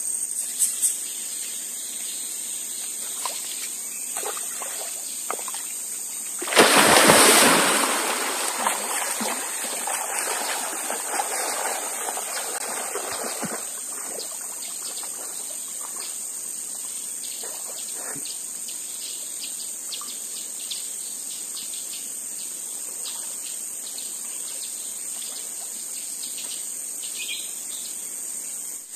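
A person plunges into river water with one loud splash about six and a half seconds in, followed by several seconds of water sloshing as they move through it, then a few small splashes. Insects sound steadily in a constant high tone throughout.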